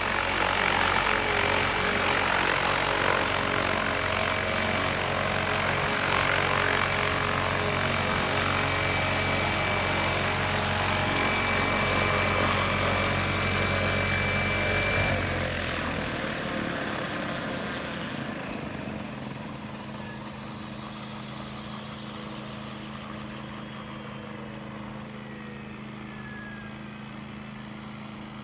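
Single-rotor crop-spraying helicopter drone running loud and steady, then shut down about fifteen seconds in; its rotor winds down with a faint falling whine, and a quieter low steady hum remains.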